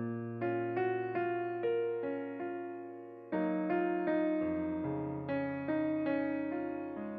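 Background music: a slow, gentle piano melody, notes struck and left to fade over held low bass notes.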